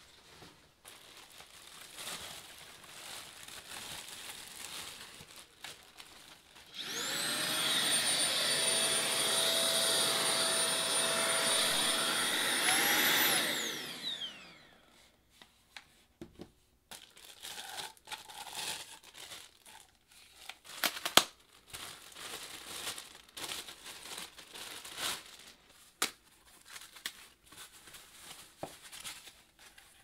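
DEENKEE cordless stick vacuum's handheld motor unit switched on briefly: its whine spins up about a quarter of the way in, runs steadily with airflow hiss for about six seconds, lifts slightly, then winds down as it is switched off. Before and after, plastic wrapping crinkles and parts are handled, with one sharp click after the motor stops.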